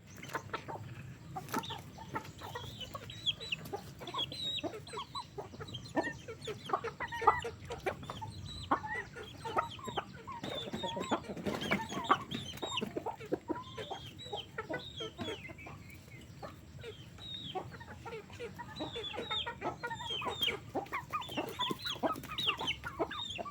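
A flock of free-range chickens clucking and calling, many short calls overlapping throughout.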